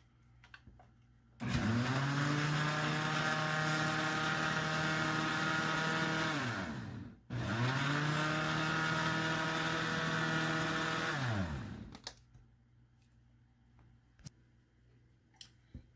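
Countertop blender run twice, about five seconds each with a short stop between, blending a mixed drink. Each time the motor spins up, holds a steady whine and winds down.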